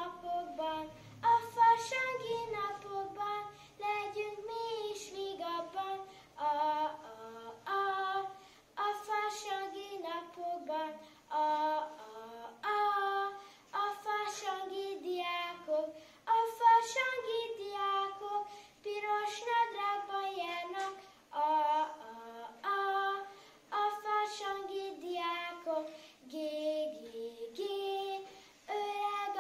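A young boy singing a song solo and unaccompanied, in phrases with short breaths between them.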